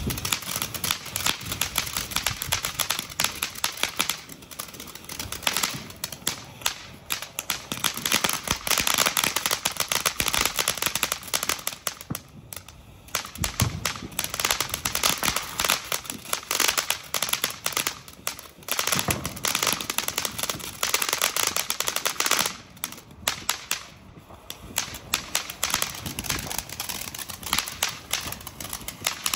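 Consumer firework fountains spraying, with a steady hiss and dense, rapid crackling. The sound dips briefly about twelve and again about twenty-three seconds in.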